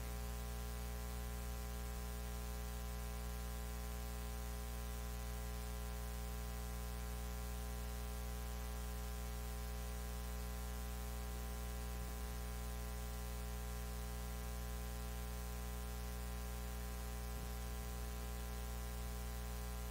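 Steady electrical mains hum with a stack of overtones and a faint hiss, unchanging throughout.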